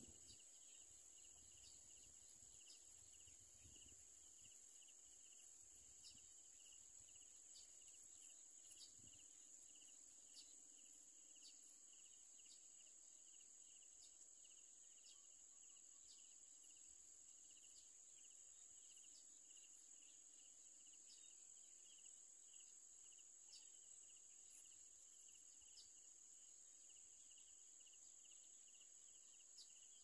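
Faint, steady chorus of insects: a continuous high buzz with a lower, rapidly pulsing trill beneath it.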